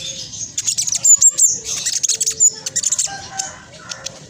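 Black sunbird (king konin) singing a fast, tightly packed, high-pitched chattering song, with a short lull about three seconds in.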